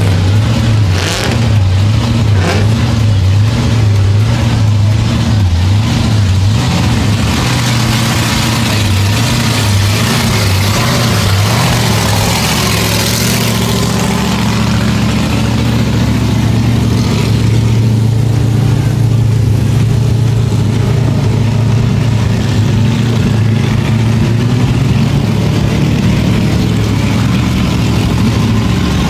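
Car engine running loud and close, with an uneven, pulsing idle for roughly the first dozen seconds, then a steadier note. A broad hiss swells and fades in the middle.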